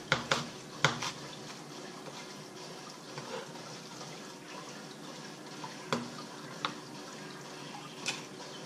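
Kitchen knife chopping cabbage on a wooden cutting board: a few sharp knocks in the first second, then a steady faint hiss, with a few more separate knocks later as the chopped cabbage is gathered off the board.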